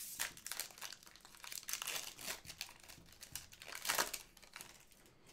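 Foil trading-card pack wrapper crinkling and tearing as it is opened by hand, in irregular crackles with the loudest burst about four seconds in.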